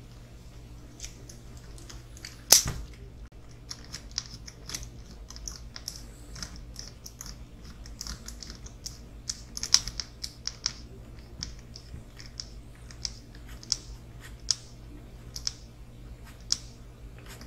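Scattered light clicks and taps of small parts being handled while fitting the drive shafts of a radio-controlled crawler kit, with one sharp snap about two and a half seconds in.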